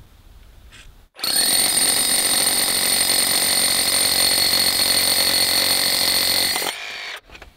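Milwaukee battery-powered rotary hammer in hammer-drill mode, boring a 1-inch bit into a concrete block wall. It starts about a second in, runs steadily at full speed with a high whine, and stops near the end with a brief wind-down.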